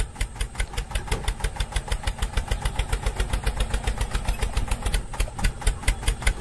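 Tractor engine sound from toy tractors as they drive off: a steady, even chugging of about eight beats a second over a low hum, like a small diesel tractor running.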